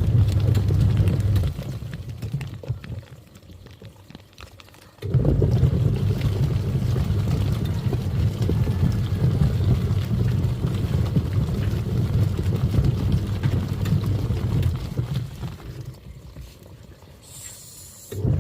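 Twin-tub washing machine's wash motor running with water churning in the tub, a steady hum. It stops about a second and a half in, starts again abruptly about five seconds in, stops again near the end and restarts just before the end, the stop-start of the wash cycle.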